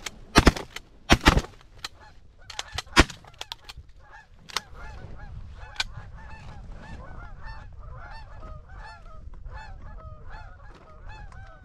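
Several shotgun shots in quick succession in the first three seconds, then a steady chorus of Canada geese honking.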